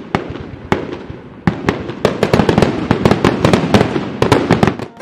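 Fireworks display bursting: a few separate bangs at first, then a rapid barrage of bangs with crackle from about two seconds in.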